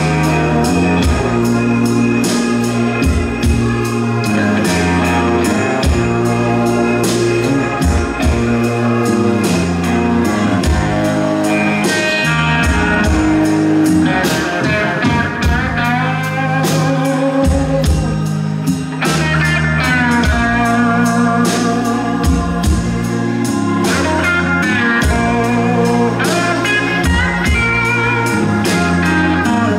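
Live band playing an instrumental passage: electric guitar lead lines over a steady drum beat, bass guitar and keyboard.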